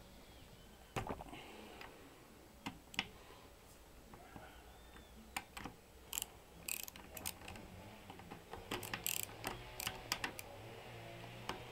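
Scattered metallic clicks and clinks of a socket wrench on the cylinder head nuts of a Villa 2.5 HP stationary engine as they are worked loose, coming in quick runs about six seconds in and again about nine seconds in.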